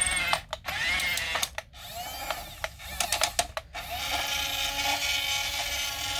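Small electric gear motors of a toy RC tank whining in short spurts as the remote's sticks are worked, the pitch rising and falling and cutting out a few times before a steadier whine near the end. The owner takes the tank for broken.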